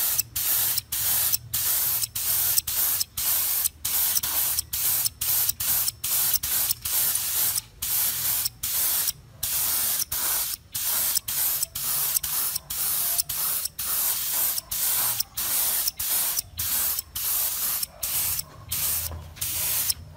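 Spray nozzle hissing in short, rapid bursts, about two a second, with brief gaps between them, over a faint low hum.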